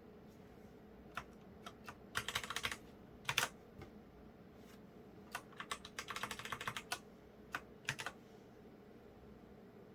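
Keys of a Micronics MANIC ZK7 gaming keyboard being pressed: scattered single key clicks with two quick flurries of typing, one about two seconds in and one around six seconds in. The last presses come about eight seconds in.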